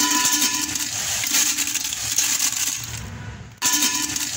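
Fried potato chips rustling and clattering as they are tossed in a bowl: a dense, crisp crackle of many small clicks. It breaks off briefly about three seconds in and starts again.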